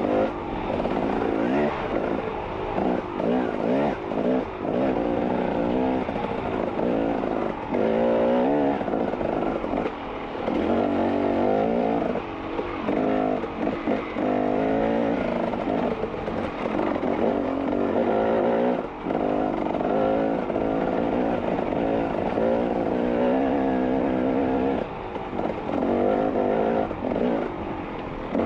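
Off-road vehicle engine under constant throttle changes on a rough trail, its pitch rising and falling again and again as it revs up and backs off.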